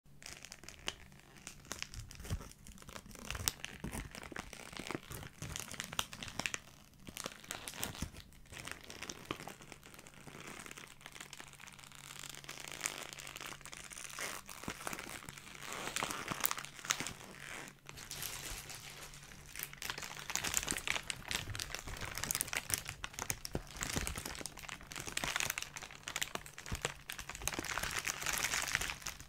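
Plastic bag being squeezed and crumpled by hand: a continuous dense crinkling made of many sharp crackles, getting louder in the last third.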